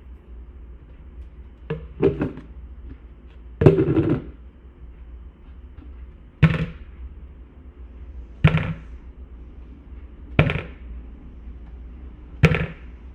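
A series of sharp impacts, a close pair near the start and then one about every two seconds, each with a short ringing tail, over a steady low hum.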